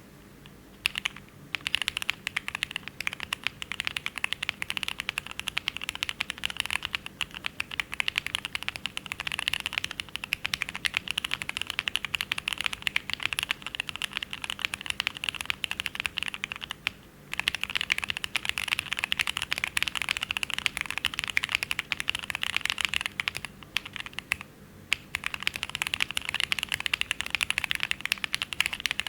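Typing on a KBDfans Taco75 custom mechanical keyboard with Cherry MX2A Black linear switches, GMK Olive keycaps and an aluminium plate: fast, continuous keystrokes that pause briefly twice, about 17 and 24 seconds in.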